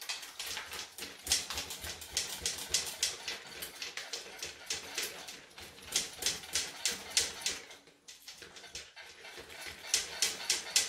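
A Husqvarna chainsaw shaken and tilted by hand, its chain, bar and loose parts clattering in quick irregular rattles, with easing-off moments a few seconds apart. The shaking swirls fuel through the tank to flush out loose chips.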